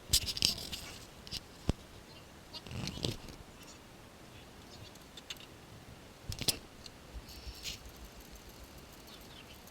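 Scattered clicks and knocks of hand tools and metal parts being handled while unbolting the alternator, in a few separate short bursts with quiet in between; the loudest comes about six and a half seconds in.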